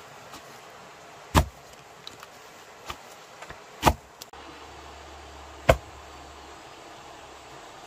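Three loud, sharp knocks about two seconds apart, with a few fainter taps between them.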